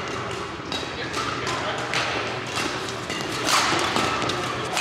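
Badminton doubles rally: rackets striking the shuttlecock in several sharp hits about a second apart, over background chatter echoing in a busy sports hall.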